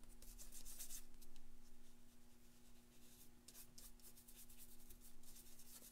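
Paintbrush bristles brushing thinned paint onto a canvas, a faint scratchy swishing in short bouts of strokes. A steady low hum runs underneath.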